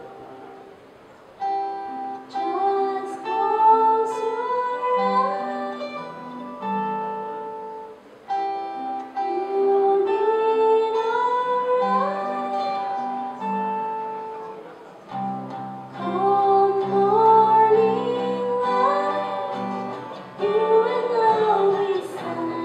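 A woman singing with acoustic guitar accompaniment, in phrases that start about a second and a half, eight and fifteen seconds in.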